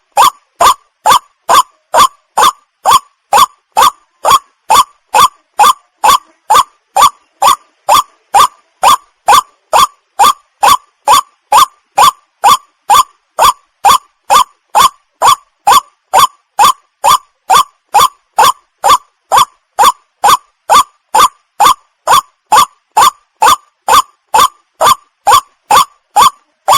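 White-breasted waterhen calling: one short, hooked, croaking note repeated monotonously at an even pace of about two calls a second.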